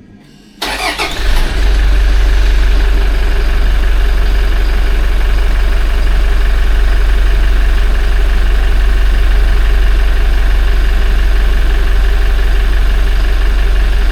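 Toyota 1GD-FTV 2.8-litre four-cylinder turbodiesel starting from cold: it cranks about half a second in, catches within a second, then idles steadily. The start is free of the timing-chain rattle the owner usually hears at start-up.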